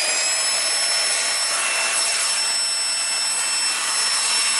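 Numatic Henry Petcare canister vacuum running with its air-driven turbo pet hair brush: a rush of airflow under a steady, high-pitched whine.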